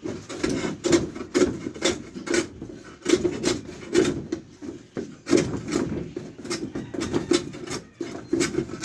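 A hand tool worked back and forth against wood, rasping in regular strokes about two a second, with a short pause around the middle.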